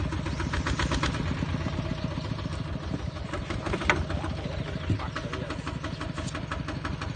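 A small engine running steadily with a quick, even firing beat.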